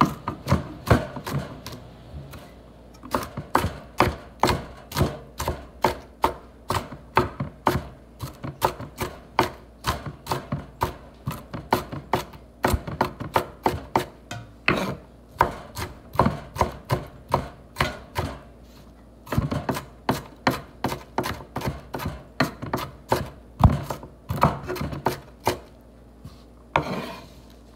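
Kitchen knife chopping green bell pepper on a wooden cutting board: a steady run of sharp chops, about two to three a second, with a few short pauses. Near the end, a brief scraping swish as the diced pieces are scooped off the board.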